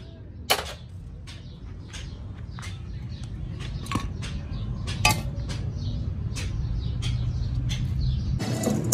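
Workshop background noise: a low rumble that builds steadily louder, with irregular sharp clicks and taps over it and two louder knocks, one about half a second in and one about five seconds in.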